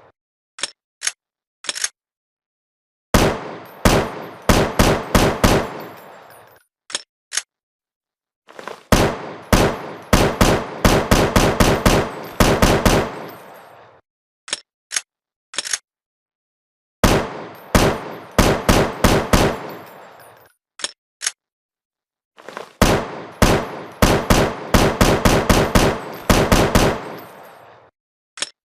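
Assault rifle gunfire sound effect: four bursts of rapid automatic fire, about four to five shots a second and three to four seconds each. Between the bursts are pauses with a few single sharp clicks.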